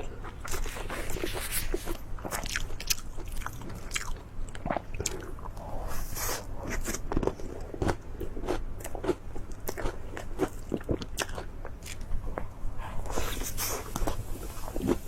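A person biting and chewing crunchy food close to the microphone: a steady run of irregular crisp crunches and mouth clicks.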